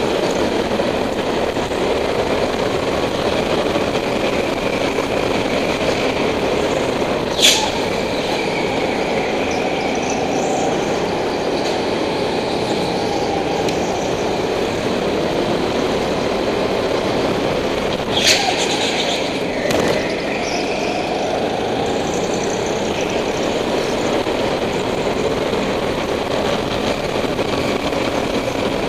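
Go-kart engine running hard, heard from on board, its pitch rising and falling through the corners. Sharp knocks cut through once about seven seconds in and twice more around eighteen to twenty seconds in.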